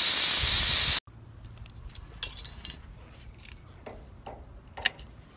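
Pressurised gas hissing steadily out of a condenser coil's copper line as its pressure is let off, cut off abruptly about a second in. Then a few light metallic clicks and clinks of hand tools working on the copper tubing.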